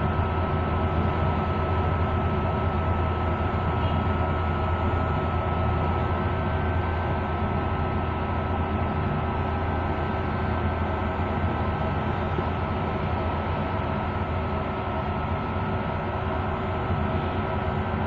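A 15 kg stainless-steel front-load washing machine running steadily through its cycle: an even low motor hum with a faint constant whine over it.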